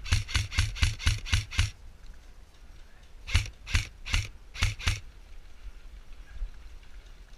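Footsteps of a player on the move: about eight quick steps, roughly four a second, then after a pause five slower steps.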